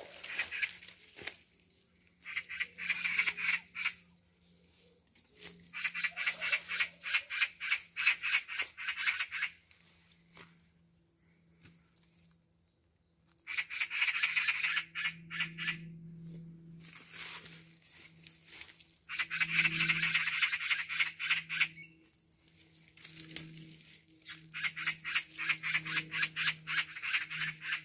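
Magpies chattering: about five runs of fast, harsh rattling calls, each two to four seconds long with short pauses between, the agitated alarm calling of magpies near their young.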